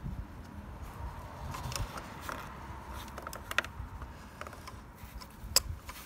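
Irregular light clicks and scrapes of a hand tool probing down a spark plug well, fishing out the rubber insert left behind by the spark plug socket. A few sharper ticks stand out, the loudest about three and a half and five and a half seconds in.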